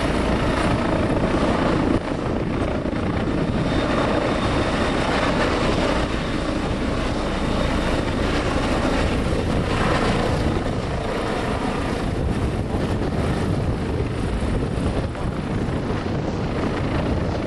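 Bell/Agusta AB-609 tiltrotor's proprotors and engines running, a loud, steady rotor noise that eases slightly near the end.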